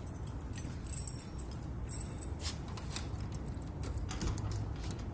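A bunch of keys jingling in two short bursts, about one and two seconds in, followed by a few light metallic clicks as a key works the newly changed lock of a crash-bar door.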